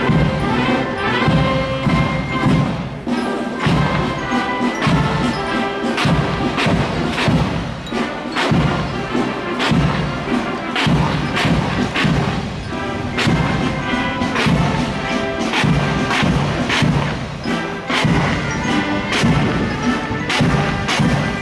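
Military band playing a march, with brass holding the tune and a steady beat of bass drum and cymbal strikes.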